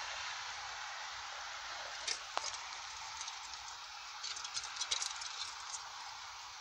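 A steady hiss with light clicks and taps: two about two seconds in and a cluster of small ticks around five seconds in, from a rusty German WWII steel helmet (Stahlhelm) being handled and set down.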